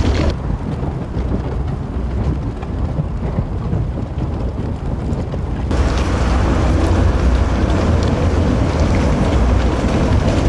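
Deep, steady rumble and grinding of a Herrenknecht tunnel boring machine of nearly 14 m diameter cutting through the last rock of the tunnel face during breakthrough, growing fuller and louder about halfway through as the face begins to crack.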